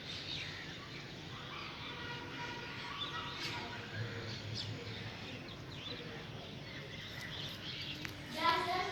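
Small birds chirping briefly now and then over steady outdoor background noise, with faint distant voices; children's voices start up near the end.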